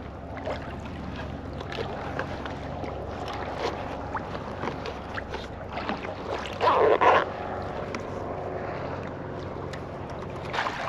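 Water lapping against the hull of a fishing kayak on open sea, with light wind on the microphone, small scattered ticks of gear handling and a steady low hum. About two-thirds of the way in there is a short, louder rush.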